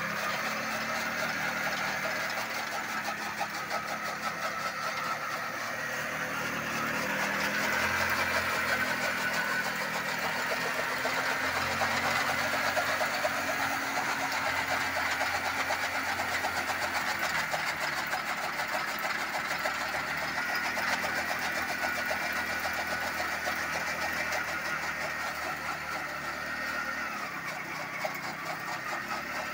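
A Unique motorcycle's engine runs steadily under load, turning a chaff cutter's flywheel through its rear wheel. Over it comes the fast chatter of the cutter's blades chopping fodder stalks as they are fed in. The engine note sags and recovers a few times as bundles go through.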